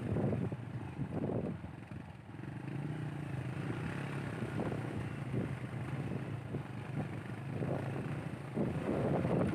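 Motorcycle engine running steadily while riding an off-road track, with gusts of wind buffeting the microphone near the start and near the end.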